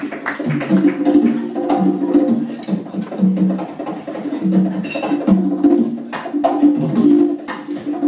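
Live band music driven by hand percussion: a busy rhythm of short, pitched drum notes and sharp, wood-block-like strikes.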